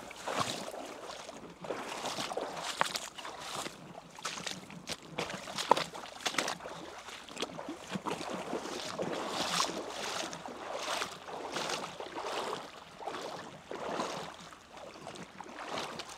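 A person wading through water, sloshing and splashing irregularly with each step.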